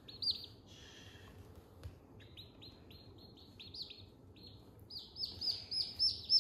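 Baby chicks peeping: runs of short, high peeps several a second, at the start, again from about two seconds in, and loudest near the end.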